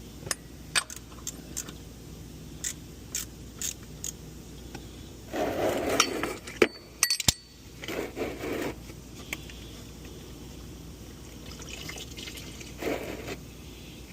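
Small metal clicks and clinks of tools and parts, broken by three short bursts of pouring and splashing liquid, engine oil draining during an oil change.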